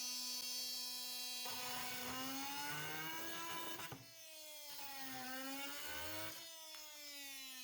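Milwaukee M18 Fuel brushless oscillating multi-tool with a wood blade cutting into wood: a steady high-pitched whine whose pitch sags twice under the load of the cut and then recovers.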